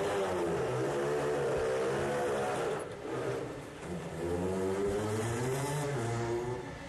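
Motorcycle engine revving and accelerating, its pitch rising and falling. The sound breaks off briefly about three seconds in, picks up again, and drops away shortly before the end.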